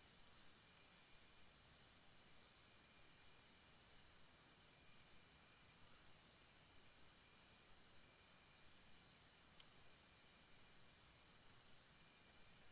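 Faint birdsong: a steady, evenly pulsing high trill with a few short, very high chirps over it.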